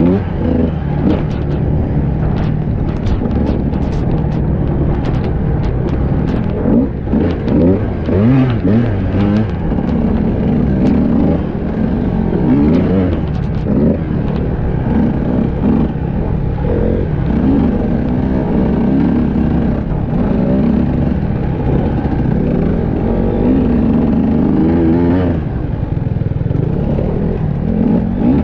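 Enduro dirt bike engine running hard up close, revving up and down as it rides, with short clicks and knocks through the first ten seconds or so.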